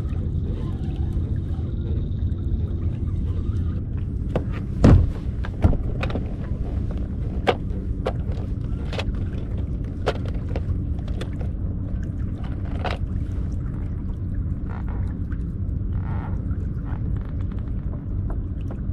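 Scattered clicks and knocks of fishing tackle being handled on a kayak, as a crankbait is baited with a worm and a snap weight is readied, over a steady low rumble, with two louder thumps about five seconds in.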